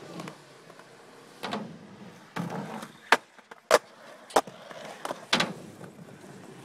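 Skateboards rolling on concrete, with about five sharp clacks of boards hitting the ground.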